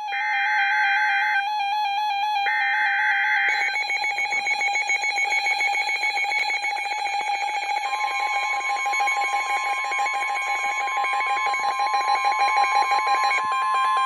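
NOAA Weather Radio receivers sounding a severe thunderstorm warning alert. It opens with two short, harsh, buzzy SAME data bursts about a second apart. Then the radios' electronic alarm pulses rapidly and continuously, and a steady alert tone near 1 kHz joins it about 8 s in.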